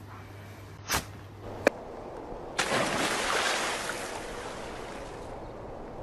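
Water splashing: a noisy rush that starts abruptly and fades over about three seconds.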